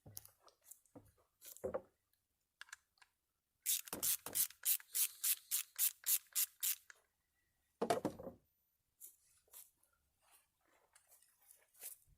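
Socket ratchet worked back and forth in a quick run of about a dozen rasping strokes, about four a second, taking the bolts off an old power-window motor. A heavier clunk follows, with scattered small handling clicks around it.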